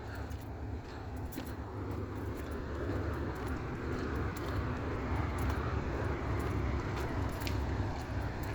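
Low, steady engine rumble of a docked or docking passenger ferry, slowly growing a little louder, with scattered faint clicks over it.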